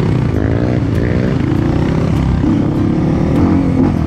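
Dirt bike engine running under way on a trail, its note rising and falling with the throttle, climbing in pitch about half a second in.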